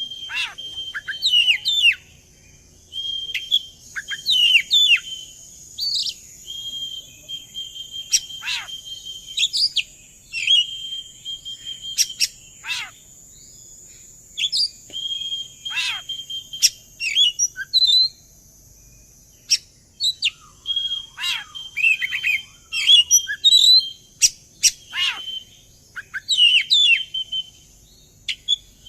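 Oriental magpie-robin (kacer) singing a lure song meant to set other magpie-robins singing. Repeated phrases of a held high whistle are broken by quick downward-sweeping notes and chatter, with short pauses between phrases, over a faint steady high hiss.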